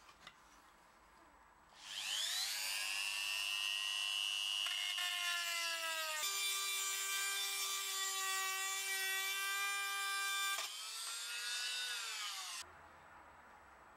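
Rotary tool with a small cutoff disc spinning up to a high whine and cutting through a steel dowel nail, its pitch shifting under the load of the cut. Near the end it runs quieter and off the work, then stops.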